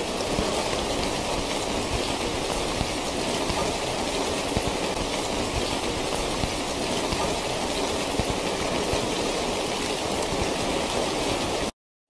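Steady rainfall, a dense even hiss of drops, that cuts off suddenly into silence near the end.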